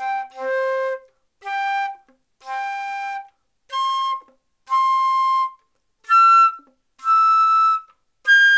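Concert flute playing short notes in pairs, each pitch sounded twice, climbing step by step through the overtones of low C: C, G, C, E, then G. It is a harmonics exercise: each pitch is played first with its normal fingering, then as a harmonic on the low C fingering.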